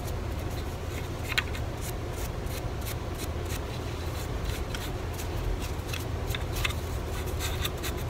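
Small carving tool paring and scraping hand-carved wood in many short, irregular strokes, over a steady low rumble.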